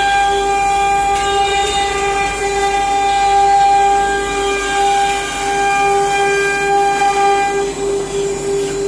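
CNC router spindle whining at a steady pitch as it carves a wooden door panel.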